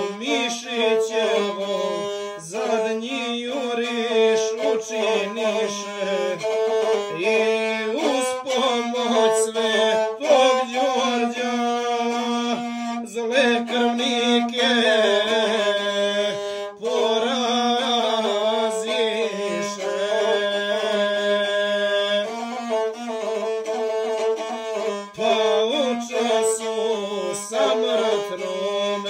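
Gusle, the Serbian single-string bowed folk fiddle, playing a continuous, heavily ornamented melody over a steady low note, accompanying a sung epic.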